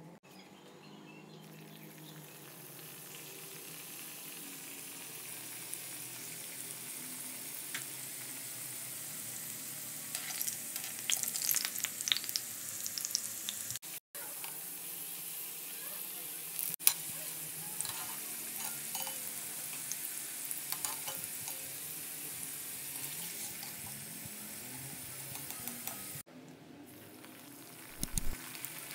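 Stuffed dough parcels deep-frying in hot oil in an iron kadai: a steady sizzling hiss that builds over the first few seconds, with brief louder crackles now and then.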